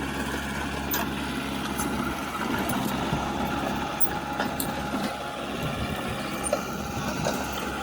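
Diesel engine of heavy earthmoving equipment running steadily at a low, even speed, with a few brief sharp clicks.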